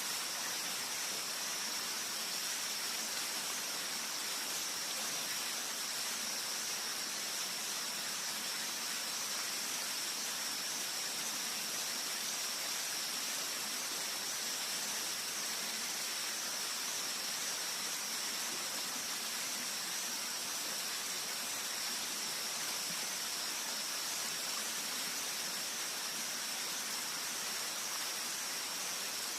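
Steady rushing of a flowing river or stream, with a constant high-pitched tone above it.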